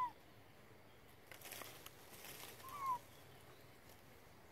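Two short animal calls, each a quick whistle that rises and then falls, one at the very start and one about three seconds in, with faint rustling between them.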